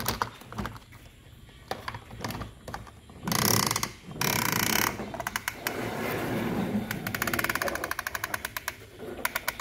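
Plastic toy excavator truck handled and rolled on a plastic tabletop: light plastic clicks, two loud scraping rushes about three to five seconds in, then a fast, steady run of clicks that grows louder near the end.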